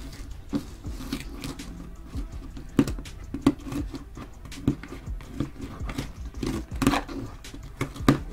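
Hands opening a box, picking and peeling off tape and tearing paper: irregular scratches, crinkles and sharp taps. The sharpest come about three, three and a half and seven seconds in.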